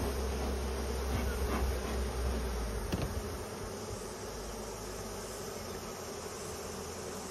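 Many honeybees buzzing steadily in the air around an opened hive. A low rumble underneath stops about three seconds in, and there is a single brief knock.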